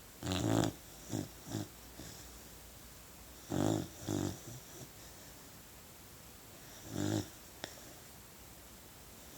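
Beagle puppy snoring in its sleep: three buzzing snores a few seconds apart, the first two each followed by shorter, fainter snores, and a brief click after the third.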